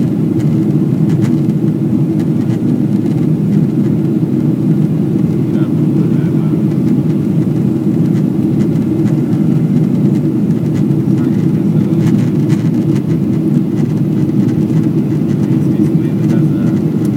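Steady low drone inside the cabin of a Boeing 777-300ER in flight: the noise of its GE90 turbofan engines and the airflow over the fuselage, heard from a window seat over the wing.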